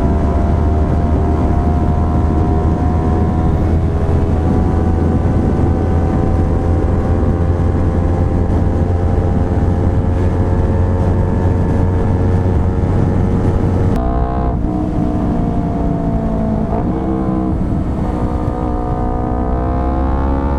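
Yamaha R3's parallel-twin engine through a full Akrapovic exhaust, riding at steady revs that slowly climb, with heavy wind rumble on the microphone. About two-thirds of the way through the revs drop sharply as the throttle closes and the wind eases, then the pitch wavers and climbs again near the end.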